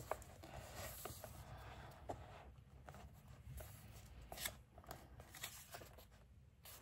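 Faint paper rustling and scattered light taps as hands smooth and press down the pages of an open colouring book.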